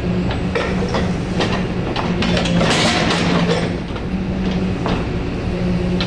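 Excavator-mounted hydraulic breaker hammering continuously, a rapid clattering pounding over the steady drone of the excavator's engine.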